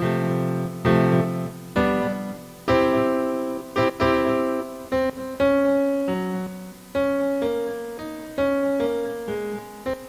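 Piano sound played from an Alesis V49 MIDI keyboard through a software piano on a computer, the repaired keys now sounding notes. Chords are struck about once a second at first, then a melody moves over held lower notes.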